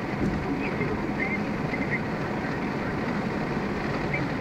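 Steady road and engine noise inside a car's cabin while driving at highway speed, about 90 km/h.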